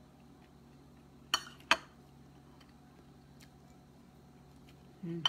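A metal spoon clinking twice against a plate of rice, two sharp clinks in quick succession about a second and a half in, with a few faint ticks of utensils around them.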